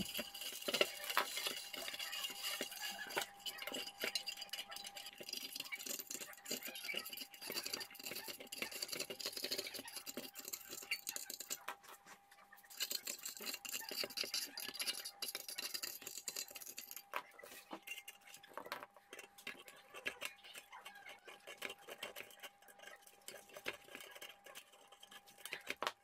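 Coiled heating-element wire of an electric hot-plate being scraped and pulled out of its ceramic grooves with cutters: irregular light metallic scratching, rattling and clinking. The old element is cracked and broken in many places.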